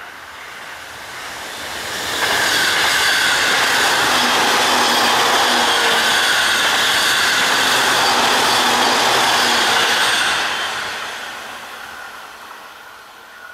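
A ten-car JR East E531-series electric multiple unit, made up of two five-car sets, passing by on the rails. The train noise builds up, turns loud about two seconds in and stays steady for about eight seconds as the cars go past, then fades away.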